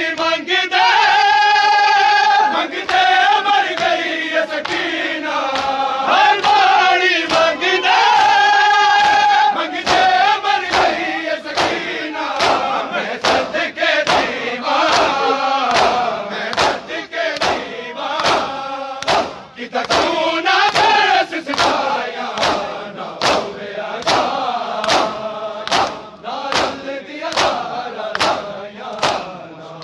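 A nauha mourning lament sung by a male reciter and a crowd of men, with long held notes. From about ten seconds in, the men beat their chests with their open hands in unison (matam), giving sharp slaps in a steady beat of roughly three every two seconds.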